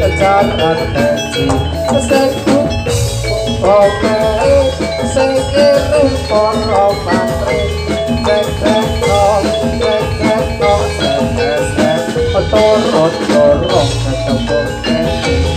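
Javanese gamelan ensemble playing jathilan dance accompaniment: struck bronze metallophones ringing out a busy interlocking melody over steady drumming, continuous and loud.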